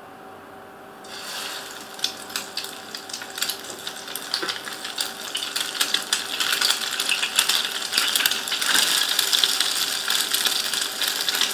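Egg-soaked bread slices sizzling and crackling in hot ghee on a flat non-stick tawa. The frying starts suddenly about a second in and grows louder as more bread goes into the pan.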